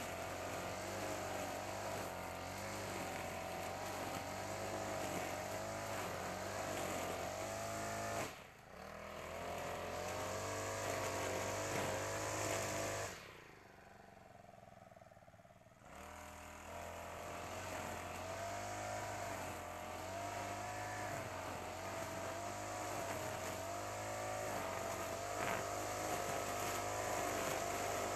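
Honda GX35 four-stroke brush cutter engine running at high speed while the trimmer head cuts grass, its pitch wavering up and down. It drops out briefly about eight seconds in and goes much quieter for about three seconds midway before coming back up.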